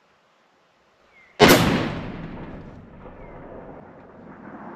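A single shot from a Savage .338 Lapua Magnum rifle fitted with a tuner muzzle brake, about a second and a half in. A sharp report is followed by a long echo that fades over the next few seconds.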